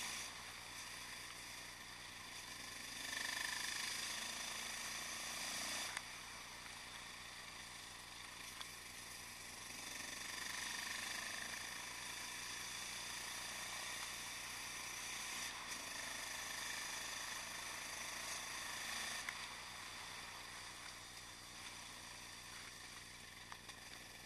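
Yamaha XT660X supermotard's single-cylinder engine with a Mivv exhaust, running under way at an easy pace, with road and wind noise. It swells a few times as the throttle opens, then falls back.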